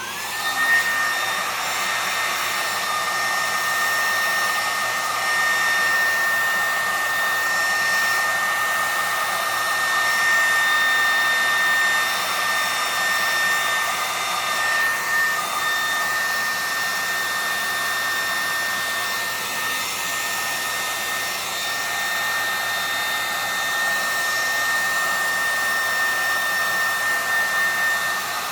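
Loud hair dryer switching on, its whine rising in pitch over the first second, then running steadily: rushing air with a constant high whistle.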